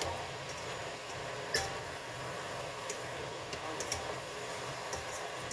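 Plastic spatula clicking and scraping against a wok while beef slices and zucchini are stir-fried: a few sharp clicks, the strongest about a second and a half in, over a steady hiss.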